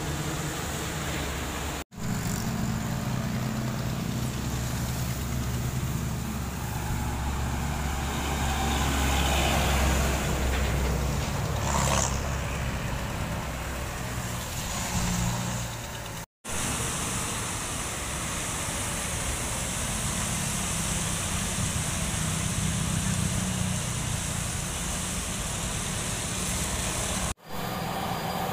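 Road traffic on a wet road: engines of a truck, cars and motorcycles passing, with a deeper engine rumble building to a peak about ten seconds in. The sound drops out suddenly three times, at cuts between clips.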